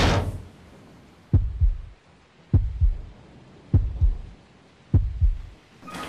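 Heartbeat sound effect: slow, deep double thumps in a lub-dub rhythm, four pairs about 1.2 seconds apart. A noisy rush fades away right at the start.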